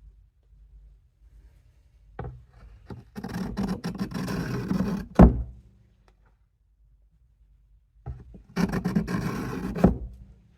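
Case USMC knife blade stroked across the coarse side of a sharpening stone, with a gritty rasp. There are two spells of strokes, each ending in a sharp tap.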